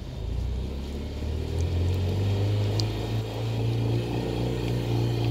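Two-cylinder car engine being revved with the accelerator: the pitch rises at the start, steps up again about a second and a half in, then holds at higher revs.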